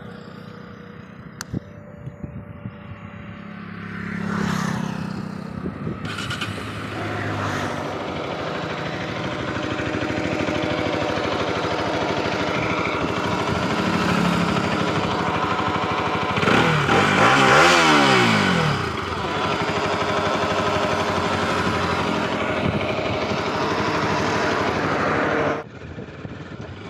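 Bajaj Pulsar RS200 single-cylinder engine running. It is revved up and back down once past the middle, then cuts off suddenly near the end. The owner is demonstrating an engine noise problem that the title links to the clutch plate and chain.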